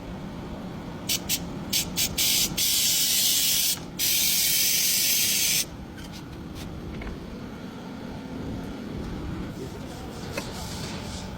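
Aerosol spray can hissing: several short squirts, then two longer sprays of about a second and a half each, over a steady low rumble.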